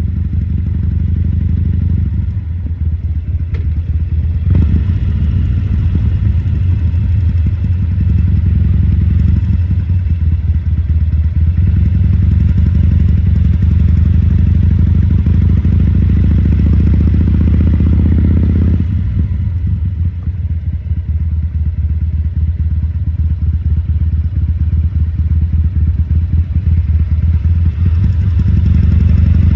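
2014 Harley-Davidson Sportster XL1200C's 1200 cc air-cooled V-twin running with a deep, steady low note. The throttle comes up about four seconds in, eases back just before twenty seconds in, and opens again near the end.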